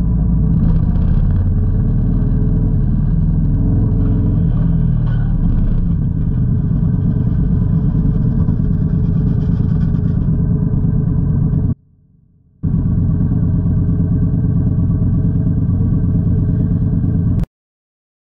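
Motorcycle engine running steadily with a low, dense rumble. It drops out for under a second about two-thirds through, then cuts off abruptly shortly before the end.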